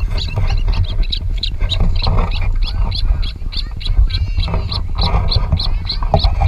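Ospreys calling: an unbroken series of short, high chirps at about four a second, the alarm calling the speaker expected as the camera neared the nest. A steady low rumble lies under it.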